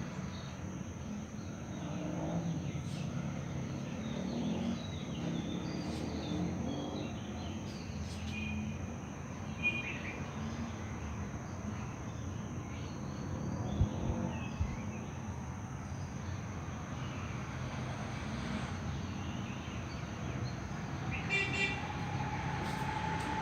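Outdoor background noise: a steady low rumble like distant traffic, with scattered short chirps and a brief high toot near the end.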